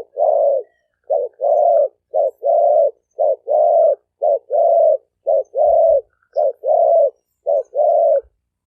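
Male spotted dove cooing: a steady run of paired coos, a short note then a longer one, repeated about once a second, eight times.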